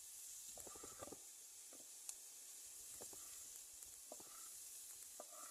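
Faint sizzling of chorizo frying with onion and chile in a pan: a steady high hiss with scattered small pops and crackles.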